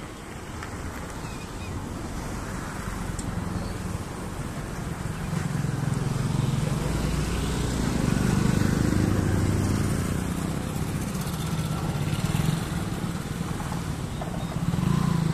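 A motor vehicle engine running steadily. It grows louder to a peak about halfway through, eases off, then swells again near the end.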